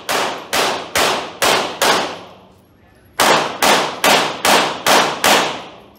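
Pistol shots fired in two rapid strings, five then six, about two shots a second, with a pause of about a second between them. Each shot echoes in a large indoor range hall.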